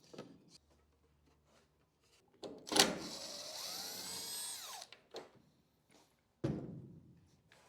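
Power drill running for about two seconds to back out a fastener, its whine falling in pitch as it stops. A sharp click comes as it starts, and a single knock follows about a second and a half later.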